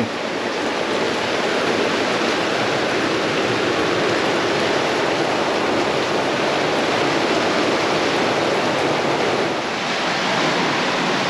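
Storm wind and rough sea around a sailing catamaran: a steady, loud rush of wind and breaking water, easing slightly near the end.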